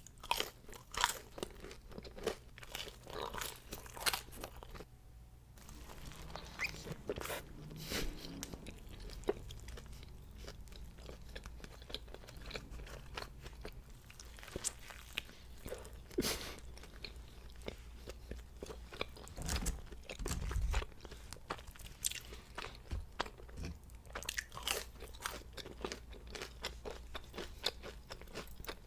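A person biting into and chewing crunchy fried fast food, many separate crunches and wet chewing sounds.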